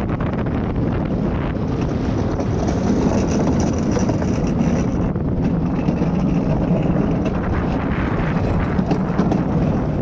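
Skyline luge cart rolling downhill, its wheels making a steady rumble on the track, mixed with wind rushing over the camera's microphone.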